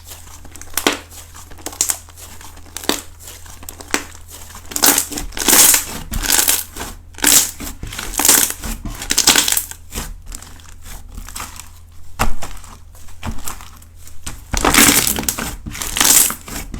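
Slime coated with small balls being squished, crunching and crackling in repeated bursts about once a second.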